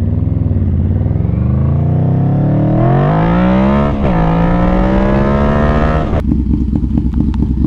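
1995 Yamaha Vmax 1200's V4 engine, fitted with a Delkevic carbon slip-on exhaust, accelerating hard: its note rises steadily, drops briefly at a gear change about four seconds in, climbs again, then falls away suddenly as the throttle is shut just after six seconds.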